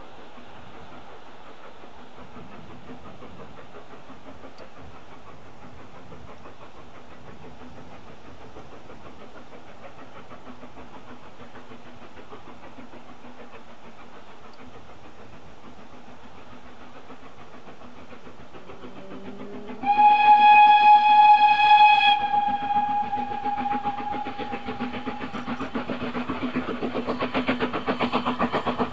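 Steam locomotive whistle blowing once, a single pitched note loud for about two seconds before fading, after a long stretch of low steady background. Then the locomotive's exhaust beats come in as a regular rhythm, growing louder as it approaches.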